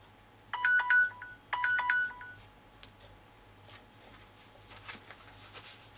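Electronic timer alarm going off: a quick run of beeps at a few different pitches, sounded twice, signalling that the set time is up. Faint scattered clicks follow.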